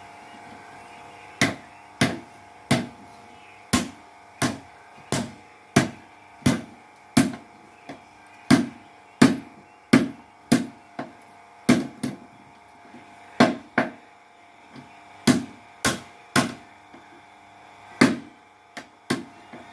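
Hammer blows on steel being forged: a long run of sharp metallic strikes, roughly one and a half a second, uneven in spacing and loudness, over a faint steady machine hum.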